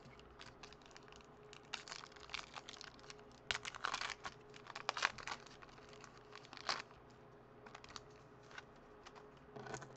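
Foil wrapper of a baseball card pack crinkling and being torn open in scattered crackles, loudest about four to five seconds in, as the cards are pulled out.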